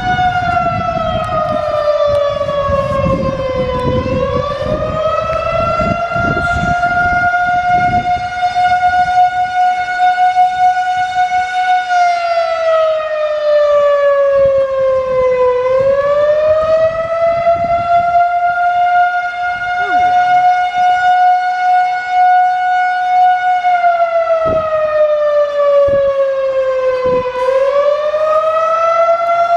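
A siren sounding continuously. It holds a steady high note, then slides down and climbs back up, repeating roughly every 12 seconds. A low rumble runs under it for the first several seconds.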